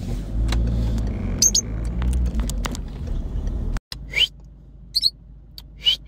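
Car cabin noise from driving, a steady low rumble, with short high calls from birds caged in the back. The rumble drops off abruptly about four seconds in, and brief chirps then stand out three times.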